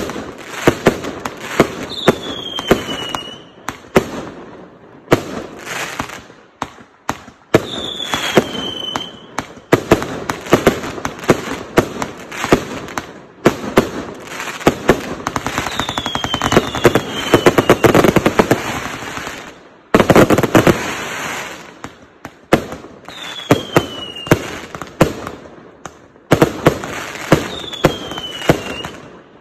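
A 0.8-inch, 399-shot fireworks cake firing: a steady string of sharp launch bangs and aerial bursts, with a faster barrage of closely spaced shots a little past the middle. About five brief falling whistles sound between the bangs.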